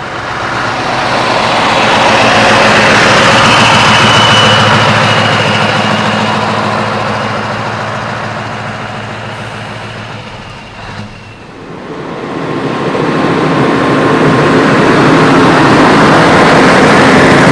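Heavy diesel trucks driving past at low speed, one after another. The engine noise swells, fades about eleven seconds in, then swells again as a Scania 143H with its V8 engine comes up close.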